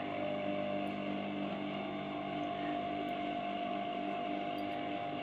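Steady electric motor hum, holding several constant tones without change.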